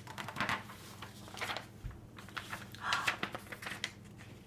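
Faint rustling and light clicks, several short scrapes a second or so apart, over a steady low electrical hum.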